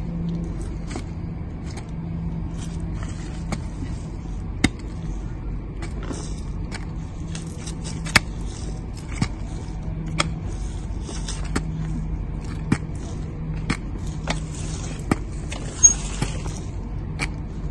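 Hand hoe chopping and scraping into soil: irregular strikes roughly once a second, a few louder than the rest, over a steady low hum.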